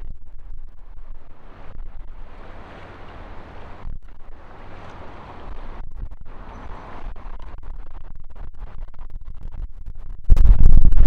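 Wind gusting over the microphone with a low rumble beneath, at sea. Near the end a much louder, dense sound cuts in abruptly.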